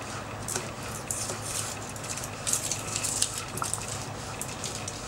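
Knife cutting scallion and tomatoes on a wooden cutting board: irregular scraping cuts with a few short sharp taps, over a steady low hum.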